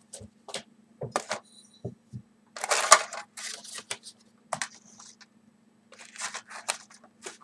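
Tabletop handling of paper seed packets and a china plate of strawberry seeds: scattered light clicks and knocks, with a longer rustle about three seconds in.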